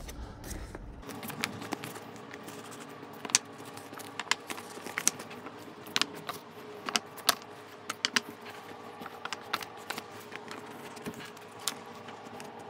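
Light, irregular clicks and taps of small white board spacers being handled and pressed into the gap between a canvas and its float frame. A faint steady hum runs underneath from about a second in.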